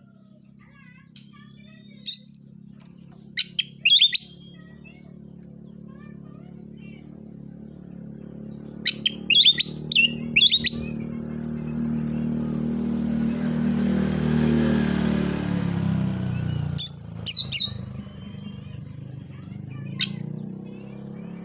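Oriental magpie-robin (kacer) calling in short, sharp clusters of loud notes with pauses between, the 'narung' style of song. Under it a low engine hum swells and fades through the middle.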